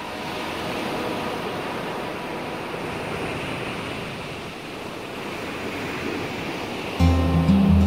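Ocean surf washing steadily, slowly swelling and easing. Music with a heavy bass line cuts in suddenly near the end.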